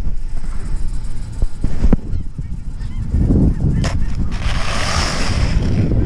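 Long-handled snow brush sweeping and pushing snow, heard as a hissing scrape over the last second and a half, over a steady low rumble.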